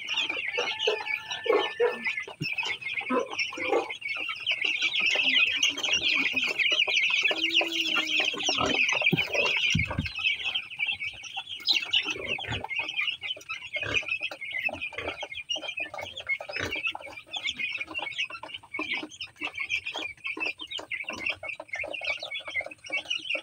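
A flock of 12-day-old broiler chicks peeping continuously, many short high chirps overlapping into a steady chorus.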